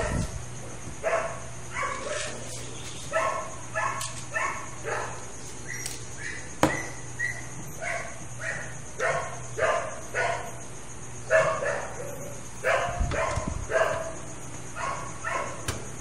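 A dog barking over and over in short, high-pitched calls, one or two a second.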